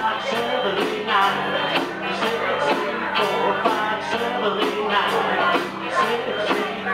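A live rock band playing: electric guitars and drums with a steady beat, and a man singing lead into a microphone.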